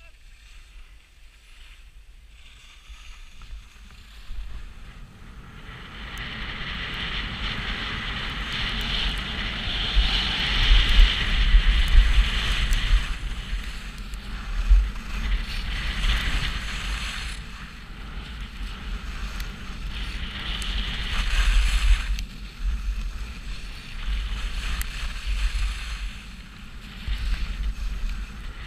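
Wind buffeting an action camera's microphone, with skis hissing and scraping over packed snow on a downhill run. Quieter for the first few seconds, then louder from about five seconds in, the hiss swelling and easing with the turns.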